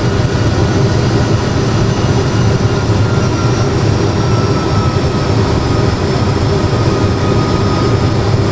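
Simulated Airbus A320 cockpit sound from a full flight simulator on final approach: a steady, loud, low jet engine and airflow rumble, with a faint high whine that slowly drops in pitch.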